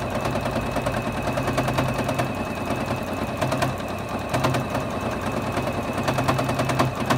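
Juki HZL-F600 domestic sewing machine running while free-motion quilting, with a rapid, even needle clatter and a motor hum that dips briefly a few times.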